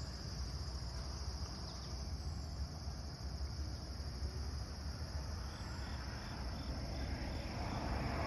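Steady, high-pitched chorus of insects chirring, over a low rumble. About five and a half seconds in, a run of short chirps, about three a second, joins it for a couple of seconds.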